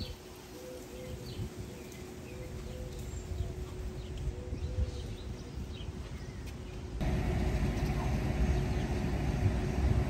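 Outdoor ambience: birds chirping over a low rumble. About seven seconds in it switches suddenly to a louder, denser rumble like passing traffic.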